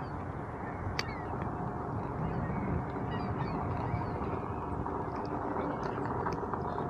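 Veteran Patton electric unicycle riding down a dirt trail: steady wind rush on the microphone and knobby-tyre rolling noise, with birds calling throughout and one sharp click about a second in.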